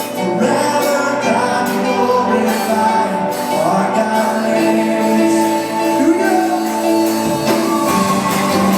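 Live worship band playing a song, with voices singing over the instruments.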